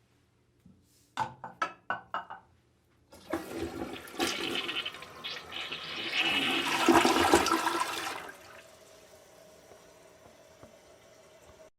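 A run of five quick clicks, then a toilet flushing: water rushing into the bowl, swelling to its loudest partway through, then dropping to a quieter steady hiss of the refill before cutting off.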